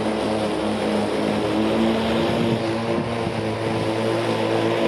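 Cordless battery lawn mowers running and cutting grass, a steady electric motor and blade whir. The pitch shifts about two seconds in as a different mower, the Stiga Combi 336E giving way to the Mountfield Electress 38 Li, takes over.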